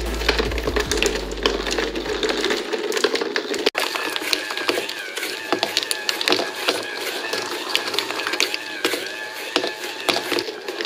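Glass marbles clicking and rattling as they roll along cardboard tracks and ride a small battery-motor-driven cardboard escalator. A low hum stops after about two and a half seconds, and the sound breaks off abruptly a little under four seconds in before the clicking resumes.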